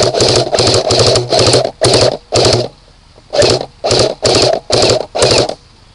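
Airsoft gun firing on full auto in about ten short bursts of rapid clicking, in two runs with a pause of about a second in the middle.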